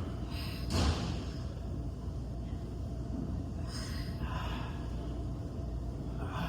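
A person's breathy exhales from exertion during an ab exercise: three short puffs of breath, the first, about a second in, the loudest, over a steady low hum.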